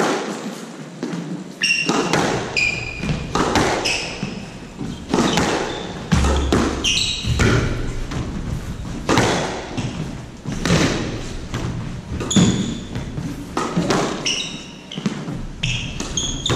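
Squash rally: the ball hit by rackets and smacking off the court walls roughly once a second, starting with the serve. Short high squeaks of court shoes on the hardwood floor come between the hits.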